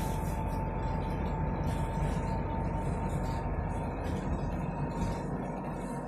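Interior of a bus under way: a steady low rumble of the drive and road. A thin steady whine runs over it and fades about five seconds in.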